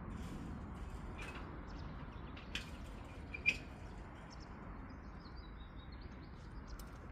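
Small birds chirping: a few short sharp chirps, the loudest two about a second apart near the middle, then a faint twittering, over a steady low rumble of outdoor background noise.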